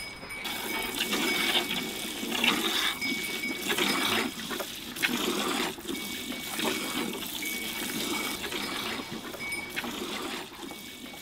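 Water running and splashing, surging and easing unevenly.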